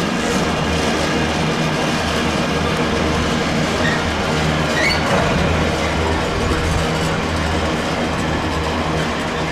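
Steady running noise of a passenger train at speed, heard from inside the carriage: an even rumble of wheels on rail with a low hum, and a brief faint squeak about halfway through.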